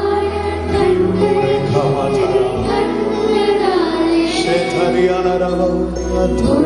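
Live Tamil Christian worship song: a man singing lead, backed by a children's choir, over sustained keyboard chords that change a few times.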